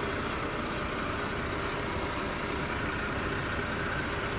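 Engine of heavy roadworks machinery running steadily at a constant speed, with no change in pitch or level.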